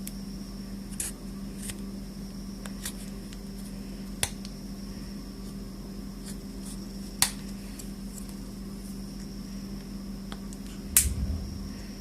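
Small scattered clicks and taps of the HTC One M8 smartphone's casing and parts being handled, with a sharper click about seven seconds in and a heavier knock near the end, over a steady low hum.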